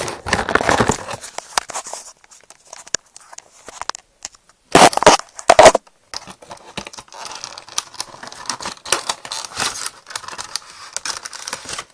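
Cardboard box packaging being opened and handled by one hand: scattered rustling noise and small clicks, with two loud bursts about five seconds in.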